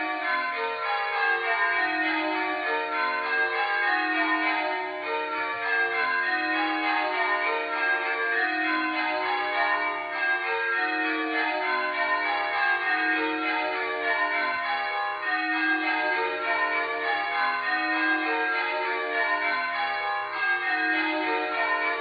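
Church tower bells in change ringing: a ring of bells struck one after another in an even, unbroken stream of strokes, each note ringing on under the next.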